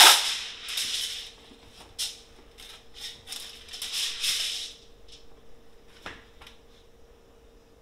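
Heavy-duty aluminium foil pulled out of its box and torn off, loudest right at the start, then crinkling in short bursts as the sheet is laid out and handled, with a few light clicks and taps near the end.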